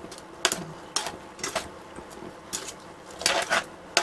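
Metal tongs clinking against a pot and a stainless steel mesh strainer while cooked noodles are lifted out of the boiling water. There are sharp, irregular clinks, about one every half second to second, with two close together near the end.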